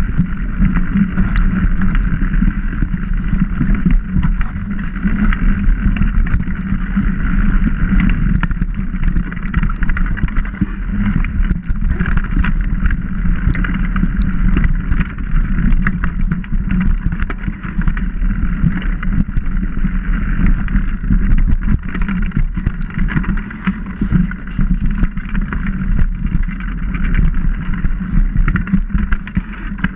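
Mountain bike riding fast down a dirt forest trail: a continuous rumble of tyres on dirt and wind on the microphone, with many small clicks and rattles from the bike over rough ground.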